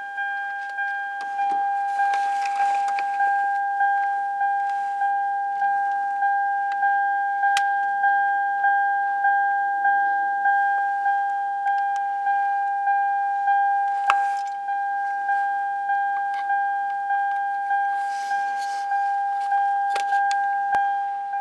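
The 2004 Lexus ES330's warning chime dinging over and over, about one and a half dings a second, each one fading quickly, with a couple of sharp clicks from handling partway through.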